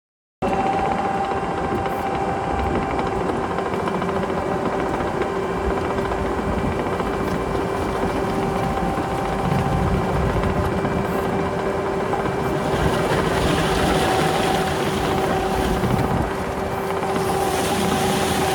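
Cat 265 skid steer's diesel engine running steadily under load, with a steady whine over a low rumble, starting abruptly about half a second in. A rushing hiss swells in the second half.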